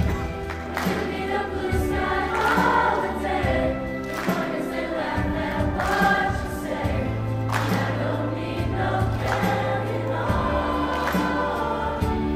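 High school choir singing a pop song over an instrumental backing with a low bass line and a steady beat.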